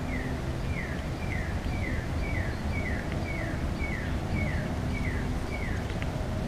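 A songbird repeating one short downslurred whistle about eleven times, roughly two notes a second, stopping near the end; a steady low rumble underneath.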